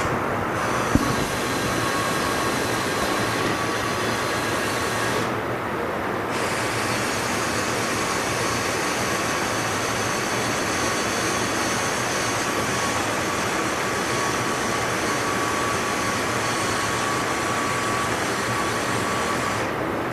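Steady rushing machine noise with a faint steady whine. Its higher hiss cuts out briefly about five seconds in and again near the end.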